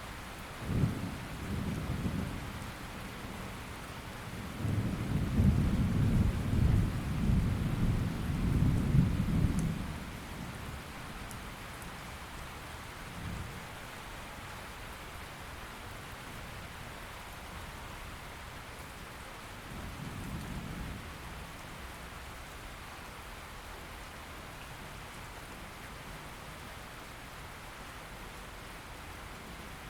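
Steady rain falling, with rolling thunder underneath. The loudest rumble swells from about five seconds in and fades by ten seconds; fainter rumbles come at the start, near the middle and around twenty seconds.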